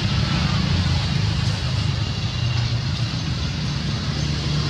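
Steady low rumble with an even hiss over it, unbroken throughout.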